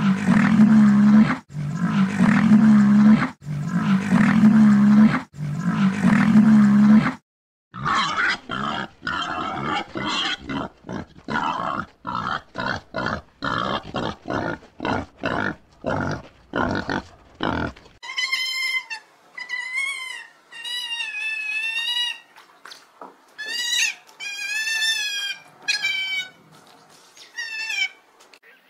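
A run of animal calls from several clips. First come about seven loud, low calls roughly a second apart. After a brief gap there is a quick string of short, rough calls, then a series of higher, clearly pitched calls that rise and fall, each under a second long.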